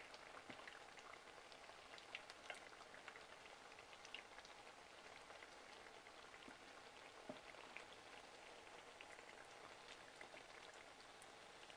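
Faint sizzling and crackling of hot oil around batter-coated nendran banana slices frying in a pan, with a few sharper pops here and there.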